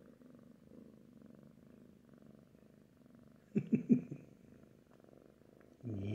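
Tabby kitten purring steadily while held. A short cluster of loud thumps comes about three and a half seconds in, and a brief louder sound comes near the end.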